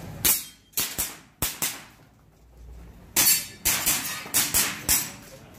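Airsoft handgun firing in quick shots, about five in the first second and a half, then after a short pause a faster string of six or seven more.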